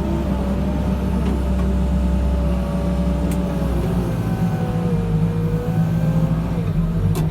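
Backhoe loader's diesel engine running steadily under load, with a fainter whine that drifts slowly up and down in pitch.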